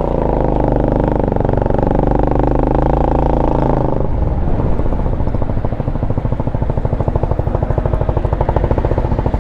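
Venom X22-GT's 250cc single-cylinder four-stroke scooter-type engine running, louder for about the first four seconds, then settling to a lower, steady idle with even firing pulses.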